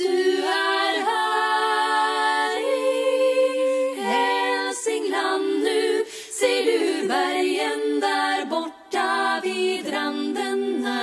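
Unaccompanied singing by several voices in harmony, holding long notes in phrases with short breaks between them.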